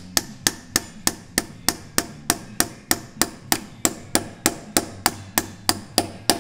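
Hammer tapping a drift to drive a new pilot (spigot) bush into the end of the crankshaft, in sharp, evenly spaced strikes at about three a second.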